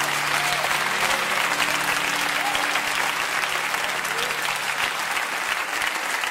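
Crowd applauding, with a few voices cheering. A low held musical chord underneath fades out about halfway through.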